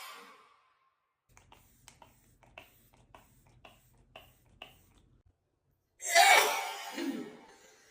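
A woman sneezing: the tail of one sneeze dies away at the start, then a few seconds of faint small clicks, then another loud sneeze about six seconds in that trails off.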